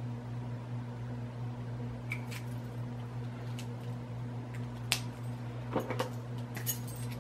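A few small plastic clicks and taps from handling mini twist-up lipstick sticks and their caps, the sharpest about five seconds in, over a steady low electrical hum.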